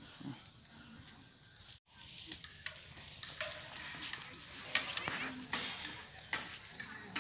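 Scattered clicks and rustles over a steady high hiss of outdoor background, with a brief dropout to silence about two seconds in.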